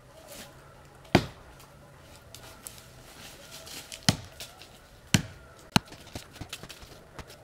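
A knife being struck into a tree trunk: a loud sharp knock about a second in, three more about three, four and four and a half seconds in, then lighter taps.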